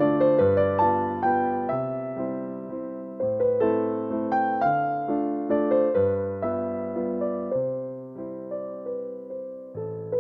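Background music: a slow, gentle keyboard piece, electric-piano-like, with a melody over sustained chords. Each note is struck and fades away.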